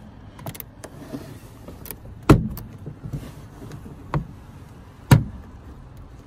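Plastic rear side trim panel of a Citroen C1 being pulled away by hand, its push-in retaining clips letting go in a few sharp cracks, the loudest about two seconds in, with plastic creaking and rustling between them.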